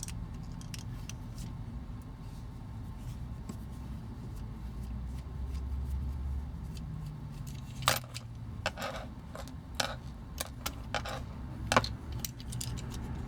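Light clicks and taps of a small screwdriver and toy parts being handled while a screw is taken out of a vintage toy. The clicks come in a scattered run in the second half, over a low steady hum.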